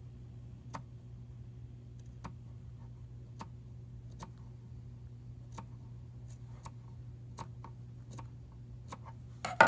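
Small scissors snipping tiny slits into the seam allowance of a cloth mask: sharp, irregular clicks about once a second, with one louder knock near the end.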